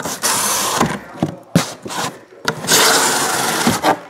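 Plastic bags and bubble wrap rustling and crinkling as a hand rummages through them inside a cardboard box, in two longer bursts with shorter scrapes between.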